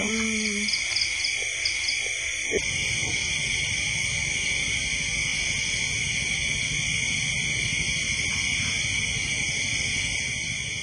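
Steady chorus of insects, several high pitches sounding at once, with a low rumble coming in underneath about two and a half seconds in.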